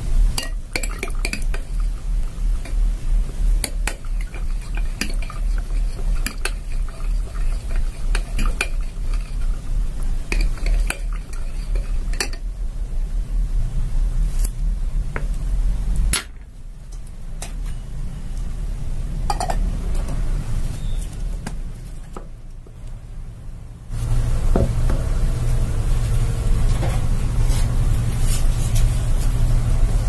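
Metal spoon stirring a drink in a glass jug, clinking against the glass many times through the first half, over a steady low rumble.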